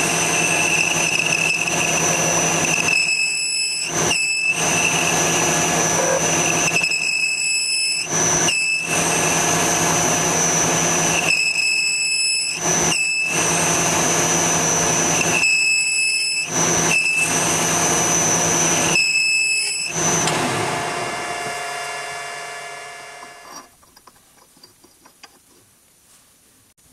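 Metal lathe running with a steady whine as it turns down a steel shaft, with short breaks every four seconds or so. About twenty seconds in the lathe is switched off and spins down to a stop.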